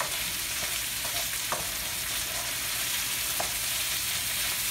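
Green beans and onions sizzling in olive oil in a large frying pan, stirred with a wooden spoon, with a couple of light knocks of the spoon against the pan.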